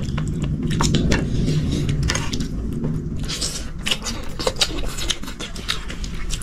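Close-miked eating sounds: repeated small clicks and taps of cutlery on plates and mouth sounds of chewing, over a steady low rumble.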